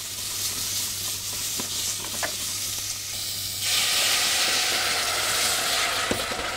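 White turnip pieces sizzling in oil in a stainless saucepan. About three and a half seconds in, water is poured in from a bottle, and the sizzle turns into a louder, steady hiss of steam off the hot pan.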